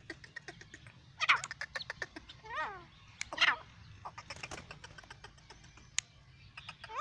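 A young bird calling: three arching, falling cries over about two seconds, the second one repeated in quick steps. Around them runs a scatter of quick light clicks, with a single sharp click near the end.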